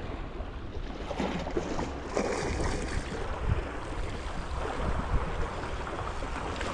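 Wind on the microphone over small sea waves washing and splashing against a shoreline rock.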